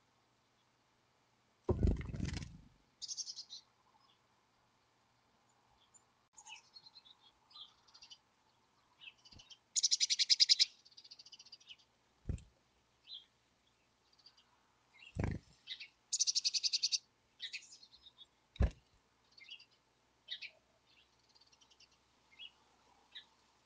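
Black-capped chickadees calling: many short high chirps, with two loud buzzy, rapidly pulsed calls about ten and sixteen seconds in. A low thump comes about two seconds in, and a few sharp taps follow later.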